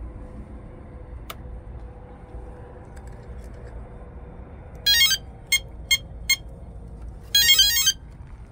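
Electronic speed controller arming tones sounded through the brushless propeller motor: a short musical tone about five seconds in, three quick beeps, then a longer tone about a second later, signalling that the controller is powered up and armed.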